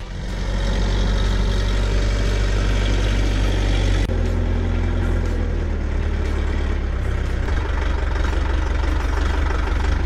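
UHI compact tractor's diesel engine running steadily; its note shifts suddenly about four seconds in and changes again a few seconds later.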